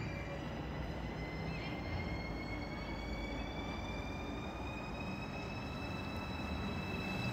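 ICE 4 electric high-speed train approaching on the through track: a steady rumble with a multi-tone electric whine from its traction drive that slowly rises in pitch.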